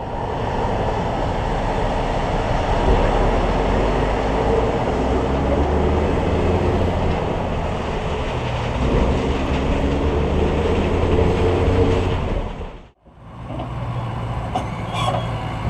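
Heavy farm machinery running steadily with a low engine drone and mechanical noise. It cuts off abruptly near the end, then starts again.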